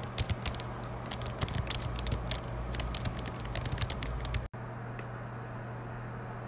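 Rapid typing on a Dell laptop keyboard, many quick key clicks over a low steady hum. After about four and a half seconds the typing stops suddenly, leaving the hum with a couple of faint clicks.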